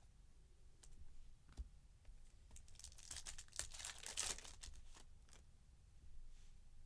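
A trading-card pack wrapper crinkling and tearing open, loudest midway, with a few faint clicks of card handling before and after.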